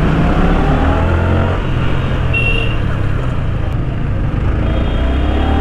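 Yamaha R15 V3's 155 cc single-cylinder engine running under a riding motorcycle, rising in pitch as it pulls away near the start and again near the end. A short high horn beep sounds about two and a half seconds in.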